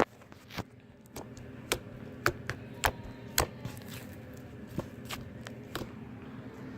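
Slime being pressed and squished by hand for ASMR, giving scattered sharp clicks and pops, about one or two a second.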